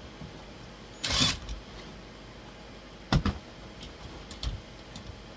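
Handling noise from fitting a metal wall-mount bracket: a short scrape about a second in, then a sharp knock, a few light clicks and a softer thud.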